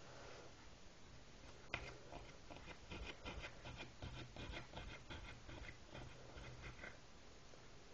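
Faint, close light scratching and clicking: a sharp click about two seconds in, then about four seconds of rapid small scratches and ticks.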